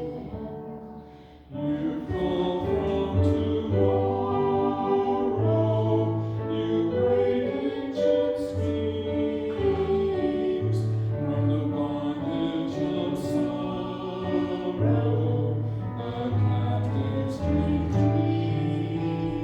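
Church music: voices singing over instrumental accompaniment with a sustained bass line. The music dips briefly about a second in and picks up again.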